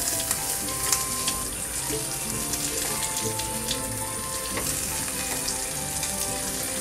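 Egg omelette sizzling in a frying pan: a steady hiss with small crackles, over soft background music.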